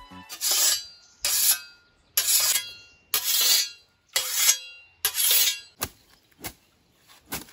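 Hand scythe swishing through tall grass in mowing strokes, about one stroke a second, six times in a row, then a few short clicks near the end.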